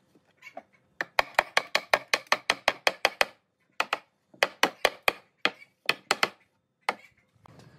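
Hammer driving nails through a pine board into a wooden frame: a quick run of about a dozen sharp strikes, a short pause, then another, slower series of strikes.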